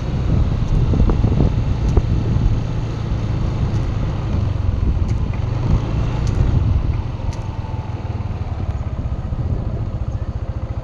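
Motorcycle engine running while riding along, under heavy wind rumble on the microphone; the wind eases over the last few seconds.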